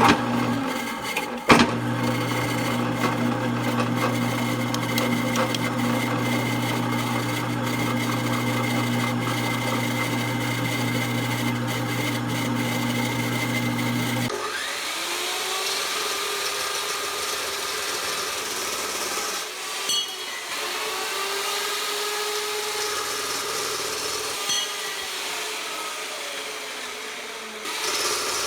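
Electric power tool running steadily at one pitch, then from about halfway its pitch repeatedly dips and recovers as the tool is put to work.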